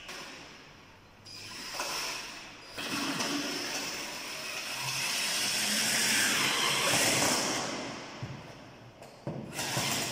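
Sliding chalkboard panels rubbing and scraping in their metal frame, then a small cordless drill running as the frame is screwed fast. The noise swells to its loudest past the middle and eases off near the end.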